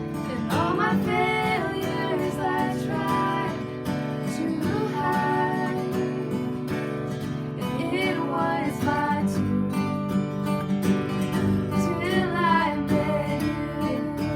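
A worship song: steady acoustic guitar strumming with a voice singing over it.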